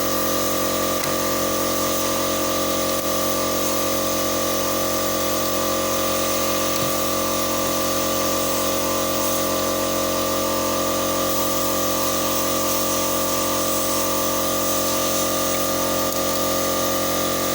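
A small electric motor running steadily, an even whine made of several fixed tones with a hiss over it that does not change in speed or pitch.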